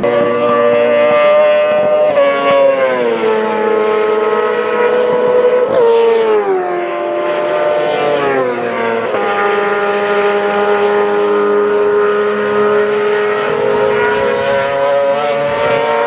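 Racing sidecar engines running hard out on the circuit. The high engine note falls in pitch about three times, around two, six and nine seconds in, and then holds steady.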